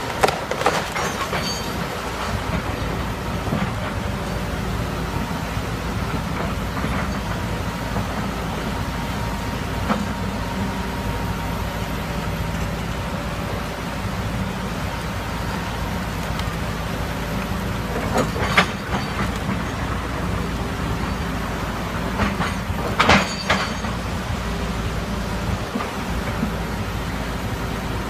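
Hitachi tracked excavator's diesel engine running steadily while it digs among rocks and flood debris in a river, with sharp knocks and clanks three times: about half a second in, about 18 seconds in and about 23 seconds in. The rush of the river runs underneath.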